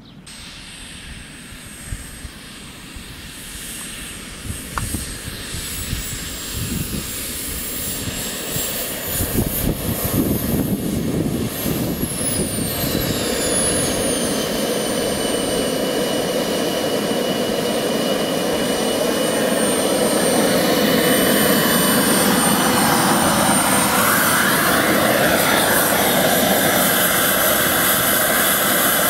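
Simjet 2250 model jet turbine whining, growing steadily louder as the RC jet taxis closer. Its high whine drops sharply in pitch about twelve seconds in.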